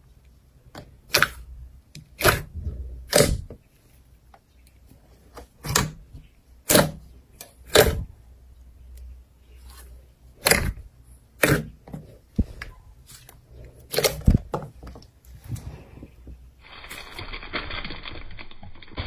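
Thick slime squeezed and stretched by hand, giving sharp wet pops and clicks from air pockets in it, about a dozen at irregular intervals. Near the end a steady rustling hiss takes over.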